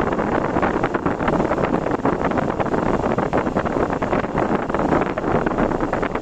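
Wind buffeting the microphone in rapid, irregular gusts over the steady road noise of a vehicle driving.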